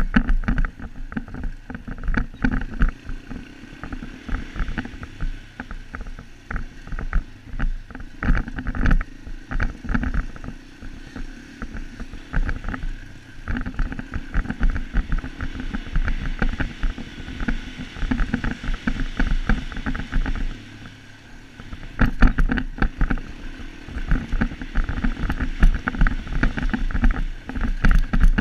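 Sport ATV's engine running under way over rough, rocky ground, with frequent short knocks and rattles from the bumps. About twenty seconds in, the engine eases off briefly, then picks up again.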